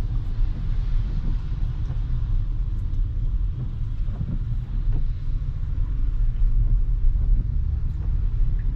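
Steady low road rumble of a Tesla electric car driving on a wet road in the rain, heard from inside the cabin, with no engine note.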